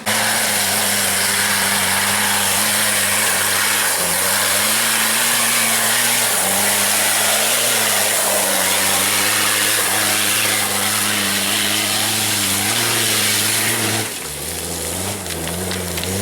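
Off-road 4x4's engine held at high, fairly steady revs under load, with a loud hiss over it. About fourteen seconds in, the revs fall and it gets quieter.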